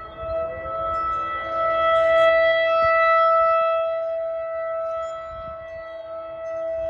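Outdoor civil defense warning sirens sounding a steady tone in a scheduled test. The nearest siren is loudest, swelling to a peak a couple of seconds in and then easing off, while another siren's lower tone rises in pitch near the start.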